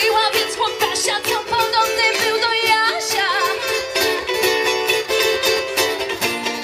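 A live folk-pop band playing: strummed acoustic guitars and a ukulele over a snare and bass drum beat, with female voices singing wavering, drawn-out notes.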